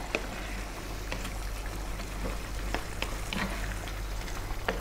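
Wooden spatula stirring potato chunks into a simmering lamb curry in a non-stick pan, with light scattered taps and scrapes over the steady simmer of the gravy.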